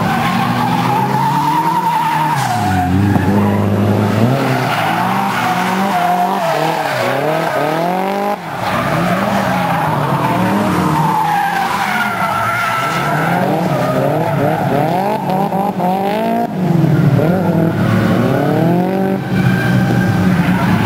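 Drift cars' engines revving hard, the pitch rising and falling again and again as they slide through the corners, with tyres skidding and squealing.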